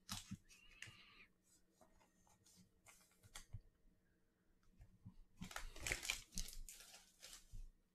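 Trading cards and a foil card pack being handled: a few faint clicks at first, then a cluster of crinkling and rustling from about five seconds in.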